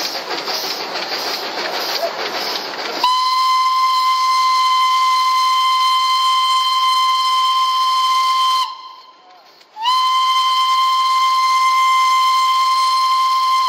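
Steam whistle of a Darjeeling Himalayan Railway B-class steam locomotive, blown in two long, steady blasts: the first lasts about five and a half seconds, and after a short break the second lasts about four. Before the whistle, about three seconds of loud rushing noise from the moving train.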